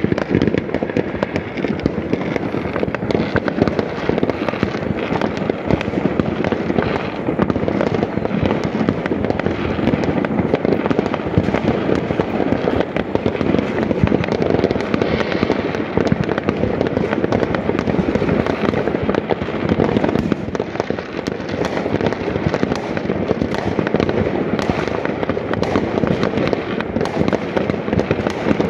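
Many fireworks going off at once across a town, an unbroken barrage of overlapping bangs and crackles with no pause and no single shot standing out.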